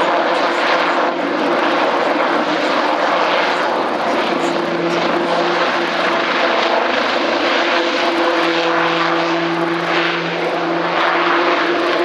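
Eurocopter X3 hybrid helicopter flying past: a loud, steady drone of its twin turboshaft engines, main rotor and two side-mounted propellers, with a humming tone that strengthens and shifts in pitch partway through as it banks overhead.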